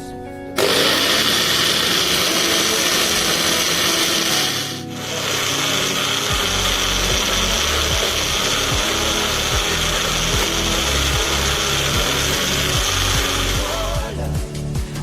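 Electric kitchen blender running at full speed, grinding vadai batter. It starts abruptly, pauses for a moment about five seconds in, then runs on until it cuts off near the end.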